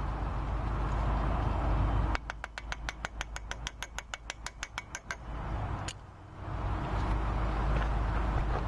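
Grease cap being tapped onto the wheel hub: a quick, even run of about twenty light taps, roughly seven a second, then one more tap a moment later, over a steady low rumble.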